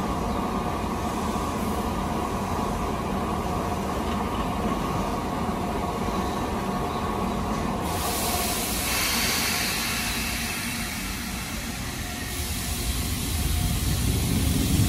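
Keisei 3500-series electric commuter train standing at the platform with a steady low rumble. About eight seconds in, a hiss of compressed air sets in and fades over a few seconds. Near the end the train starts to pull out, its running sound rising.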